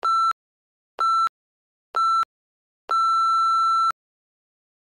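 Workout interval timer beeping out a countdown: three short beeps a second apart, then one long beep about a second long, marking the end of a work interval.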